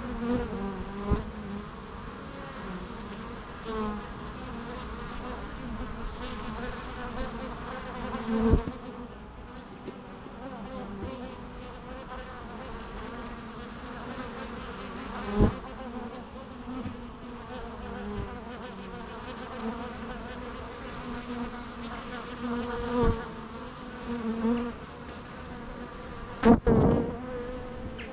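Bees buzzing: a steady hum of many wings, with single bees passing close to the microphone several times as brief, louder buzzes that swell and fade. The loudest pass comes near the end.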